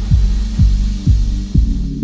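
Background electronic music: a deep, steady bass with a kick drum beating about twice a second.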